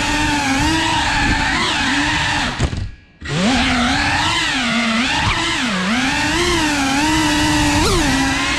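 FPV quadcopter's brushless motors whining, the pitch rising and falling with the throttle. About two and a half seconds in there is a sudden loud moment. The motors then go almost silent for about half a second before spinning back up with a rising whine.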